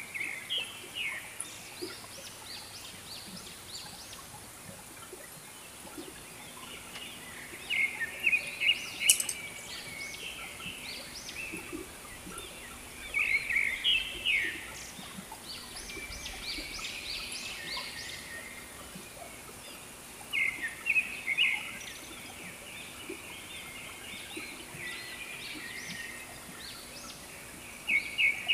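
A bird calling in bursts of rapid chattering notes every few seconds, over a steady high hiss.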